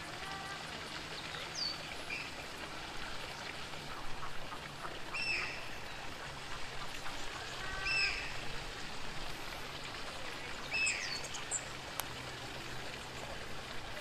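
Birds calling over a steady hiss of running water: a handful of short, downward-slurred chirps spread through, plus one sharp click near the end.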